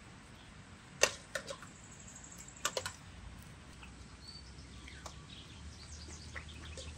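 Metal spoon knocking against a steel pot and metal bowls as food is dished out: a sharp clink about a second in, a couple of lighter ones, and a quick cluster of clinks with a brief ring near three seconds. After that, faint scattered clicks as dogs eat from metal bowls.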